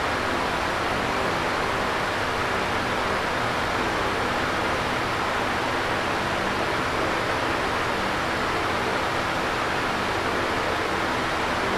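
Electric fan running steadily: an even whooshing rush of moving air with a faint low hum beneath it.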